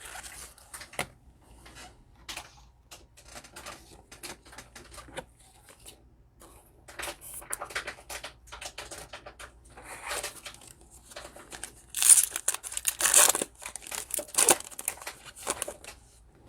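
A trading card pack's foil wrapper crinkling and tearing open, with cards handled, in a run of short crackles; the loudest tearing comes about twelve seconds in.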